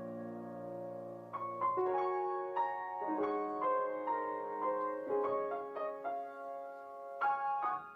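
Background music: a held chord, then a slow melody of single struck notes from about a second and a half in.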